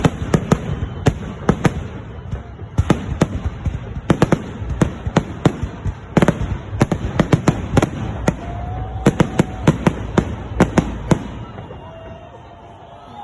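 Fireworks salute: a rapid, irregular barrage of sharp bangs from bursting aerial shells, often several in quick succession. It thins out and dies away about eleven seconds in.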